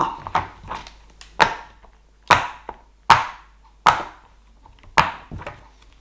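Silicone pop-it fidget toy having its bubbles pressed one by one, each giving a sharp pop, roughly one a second with a few fainter pops between.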